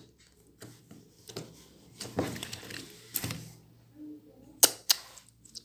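Slime being worked by hand: soft sticky squishes, with two sharp clicking pops close together near the end.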